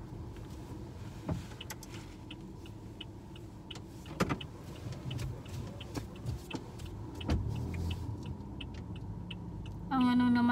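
Car cabin noise while driving slowly: a steady low rumble with scattered light clicks and a few louder knocks.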